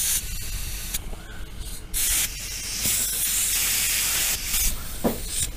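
Compressed air hissing in bursts at a tractor tyre's valve stem as an air chuck is pushed on. The chuck won't stay on the valve, so air escapes around it. The longest hiss, about two seconds, starts around two and a half seconds in.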